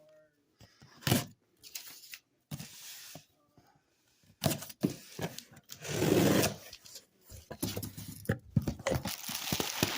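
Shipping box being unpacked: cardboard and bubble wrap rustling, scraping and crinkling in irregular bursts with short clicks and pauses.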